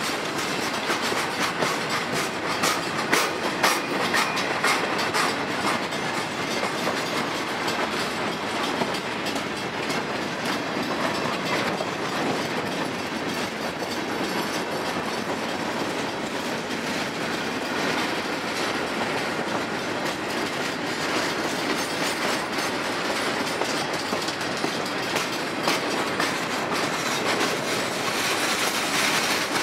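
Freight train cars rolling past at close range: steel wheels clicking over rail joints in a steady clickety-clack over a continuous rumble and rattle, with the clicks thickest in the first few seconds.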